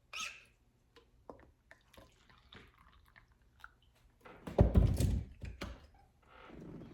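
Someone puffing on a tobacco pipe: faint wet clicks and pops from lips on the stem, then a loud puff of breath on the microphone about four and a half seconds in.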